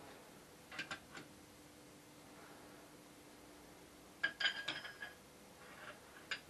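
Small metal parts clinking against each other with a light ringing: a few clinks about a second in, a quick cluster of clinks about four and a half seconds in, and one more near the end, over a faint steady hum.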